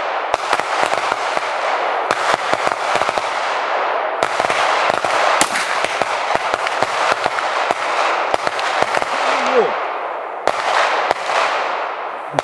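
Pistol test shots fired over a chronograph for an ammunition velocity check: several sharp cracks with echoes, over a dense crackle.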